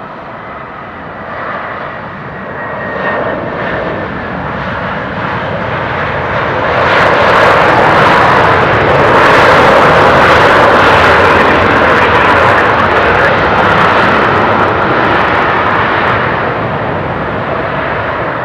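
Jet engines of a landing Airbus A320-200 running during its rollout on the runway. A thin whine is heard at first, then a loud roar builds about six seconds in and eases off near the end.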